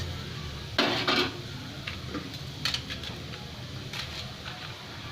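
Serving utensils and dishes clinking during plating: a few sharp clicks, with the loudest clatter about a second in.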